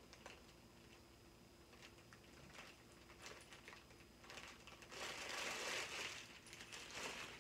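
Clear plastic bag crinkling as it is handled, with faint scattered rustles and a louder stretch of crinkling about five seconds in.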